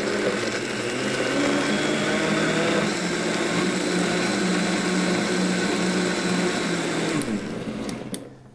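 Countertop blender running steadily as it purees chunks of tomato, bell pepper, cucumber and watermelon into gazpacho. The motor winds down and stops near the end.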